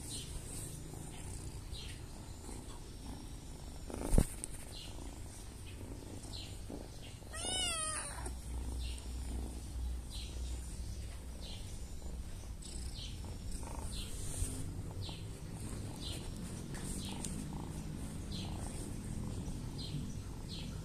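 Domestic cat purring steadily, with one meow about seven seconds in. A sharp knock about four seconds in is the loudest sound.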